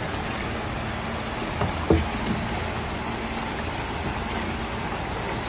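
Dye bath water sloshing and churning in a large plastic bin as a long wooden pole stirs it, with a single knock about two seconds in.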